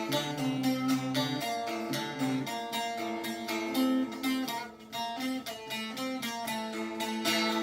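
Instrumental break in a Kurdish song: plucked string instruments playing the melody over a steady, even pulse, with no singing.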